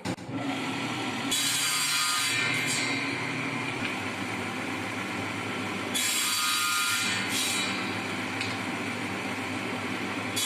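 An old circular saw mounted as a table saw starts up and runs with a steady motor hum. It cuts through a wooden strip twice, about a second in and about six seconds in, each cut a harsher, higher-pitched sawing sound as the homemade crosscut sled pushes the wood through the blade at an angle.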